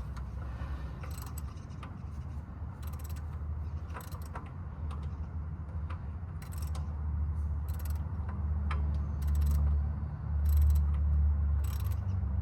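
Hand ratchet wrench worked back and forth on a bolt, its pawl clicking in short runs about once a second, over a steady low rumble that grows louder near the end.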